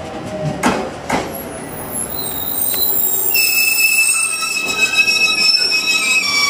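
JR Kyushu 813 series electric train running in along the platform and braking. There are two sharp knocks of wheels over the rail about a second in, then a high, steady squeal of the wheels under braking that sets in after about two seconds and holds as the train slows.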